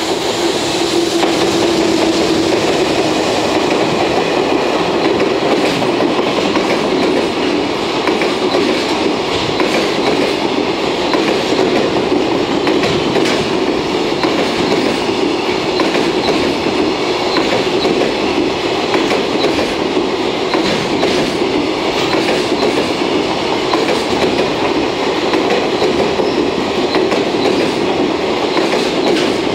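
JR Freight container train hauled by an EF210 electric locomotive passing close by. The wheels of the container wagons make a continuous rumble and clickety-clack over the rail joints. A steady hum sounds in the first few seconds as the locomotive goes by.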